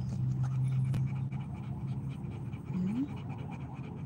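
Rottweiler panting quickly and rhythmically, mouth open and tongue out. A low steady hum runs under the first second, and a short rising note comes near three seconds.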